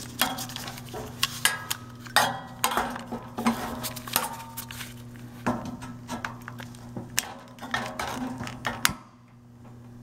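Irregular light metallic clinks, taps and knocks from handling the heater's sheet-metal housing and the multimeter test leads, over a steady low hum. The clinks stop about nine seconds in.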